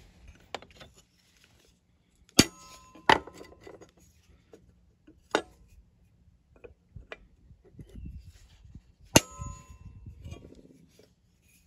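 Ball-peen hammer striking a steel punch set in an oil pump cover's bolt hole, on a steel plate. Four sharp metallic clangs that ring briefly, spread over the stretch, with a few lighter taps between them.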